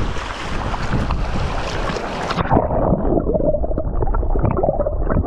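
Shallow reef water splashing and churning at the surface, then about two and a half seconds in the sound turns muffled as it is heard from underwater: low rumbling and gurgling of moving water.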